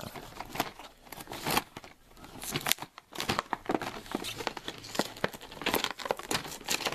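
Stiff plastic blister packaging of a die-cast toy car five-pack being pried and peeled off its cardboard card by hand, crackling and crinkling with irregular sharp snaps.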